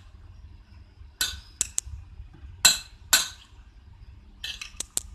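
Metal spoon clinking and scraping against a bowl as boiled peanuts and chopped vegetables are stirred together, in a series of short separate strokes.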